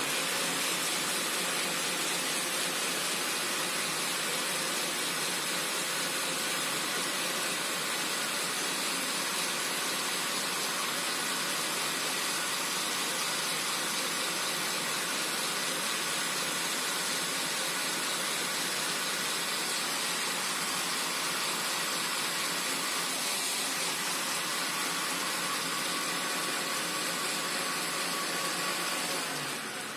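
Bolde Super Processor's electric motor running steadily, spinning the citrus-press reamer as a lemon half is pressed down onto it. It is switched off near the end and begins to wind down.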